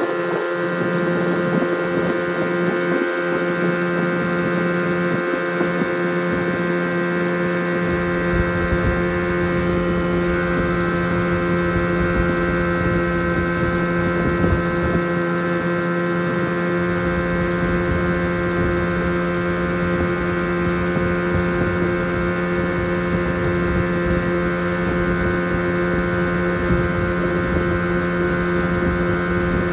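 Evinrude 9.9 hp outboard motor running steadily under way, holding one even engine note throughout.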